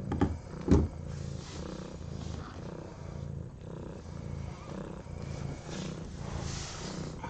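Mother cat purring steadily, a low rhythmic rumble, while nursing her newborn kittens. A few sharp knocks come in the first second.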